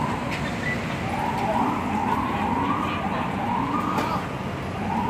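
Emergency vehicle siren sounding a run of rising sweeps a little over a second apart, over a steady low street din.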